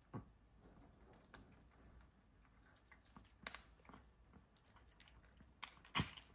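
Yorkshire terriers chewing and crunching dry kibble, faintly, with scattered small clicks and one sharper knock near the end.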